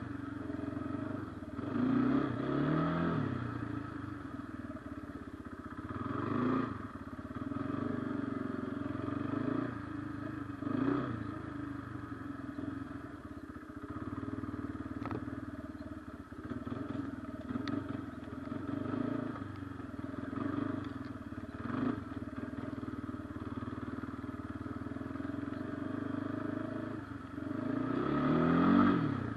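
Kawasaki Brute Force 300 ATV's single-cylinder four-stroke engine running while being ridden. The revs rise and fall with the throttle several times, the biggest rev near the end.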